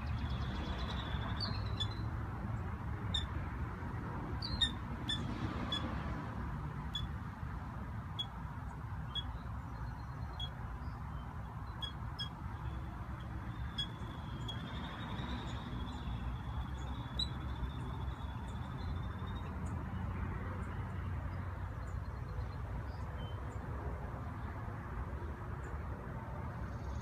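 A young bird calling for its parent: short, high peeps about once a second, with a longer drawn-out high note near the middle and fewer peeps toward the end. A low steady rumble runs underneath.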